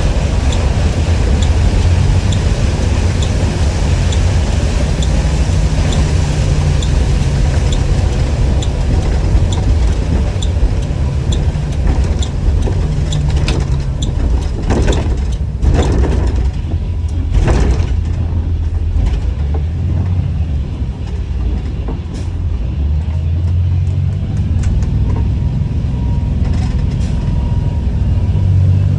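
2021 Blue Bird All American school bus running with a steady low engine drone. A regular ticking, a little over one tick a second, runs through the first dozen seconds, and a few loud hissing bursts come just past halfway.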